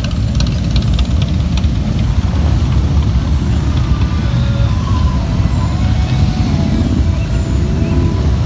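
A procession of cruiser and touring motorcycles riding slowly past one after another, many engines running at low revs in a loud, continuous low drone.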